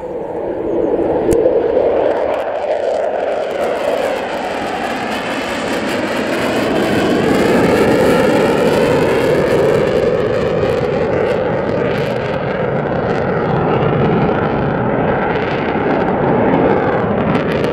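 Jet noise from a USAF F-15 fighter's twin turbofan engines as it flies low past and banks overhead to land. The noise swells quickly in the first two seconds, then stays loud and steady, with a wavering, phasing whoosh in its upper part.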